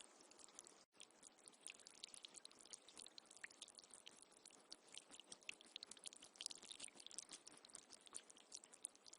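Faint running water: a dense patter of small ticks and drips over a steady hiss, with a brief dropout just under a second in.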